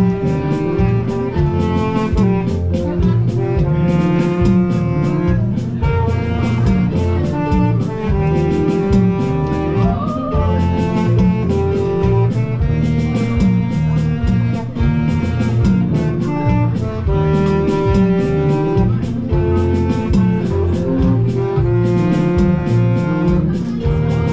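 Live band instrumental: electric bass guitar and keyboards playing a song with a steady beat, a held melody line on top.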